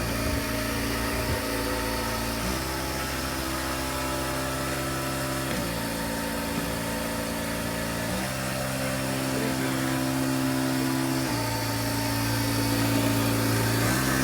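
A motor running steadily, its hum stepping abruptly to a new pitch about every three seconds.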